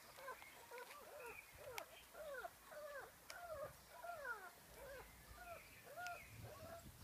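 Dogue de Bordeaux puppies whining: a run of short whimpers, each rising and then falling in pitch, about two or three a second.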